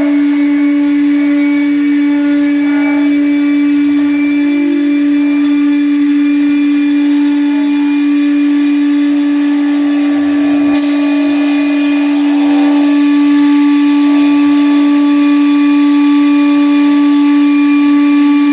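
Small CNC router's spindle running at a steady high-pitched whine as its engraving bit cuts lines into an MDF sheet.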